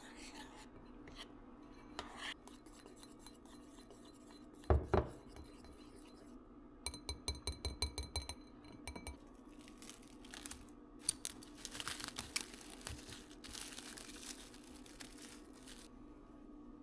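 Kitchen handling sounds: a dull thump, then a quick run of glassy clinks, followed by scattered rustling and scraping.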